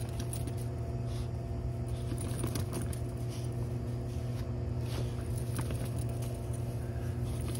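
A Cavalier King Charles spaniel scuffling and rustling in dry grass and fallen leaves as it mouths and paws at a plush toy, with many small scattered crackles. A steady low hum runs underneath.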